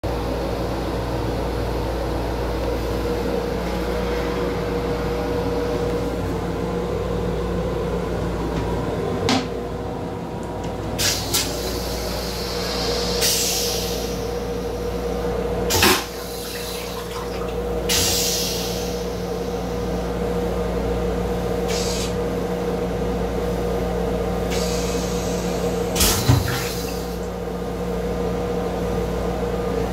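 Steady hum inside an M7 electric railcar's restroom, with a constant low tone under it. Several sharp knocks and clunks come through it, and a few short hissing surges.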